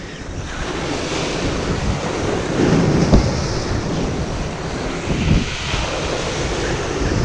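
Surf washing over a rocky shoreline, with wind buffeting the microphone in a few low gusts.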